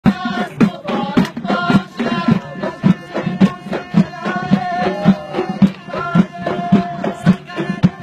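Folk dance music: frame drums struck in a steady beat about twice a second, with a melody carried over the drumming.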